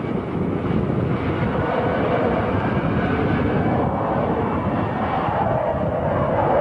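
Twin-engine jet fighter's engines running in a steady jet roar as the aircraft hangs in a vertical climb. A mid-pitched rumble in the roar grows stronger from about a second and a half in.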